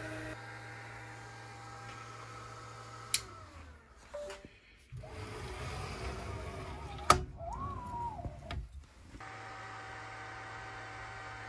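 xTool diode laser cutter running, a steady hum of its module fan and stepper motors. About three seconds in, after a click, the hum falls away. Then come knocks and handling noise as the laser head is moved by hand, with a sharp click about seven seconds in. The steady machine hum returns about nine seconds in.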